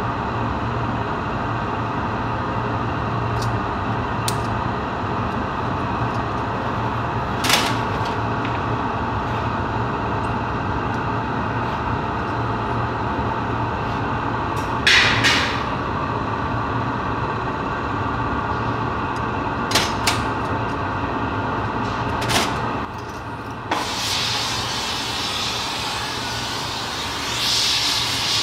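Steady hum and roar of glass-workshop machinery, broken by a few brief clinks and scrapes of steel tools on the hot glass. About four-fifths of the way through, a hand-held gas torch comes on with a sudden whoosh and keeps hissing, growing louder near the end as its flame plays on the glass.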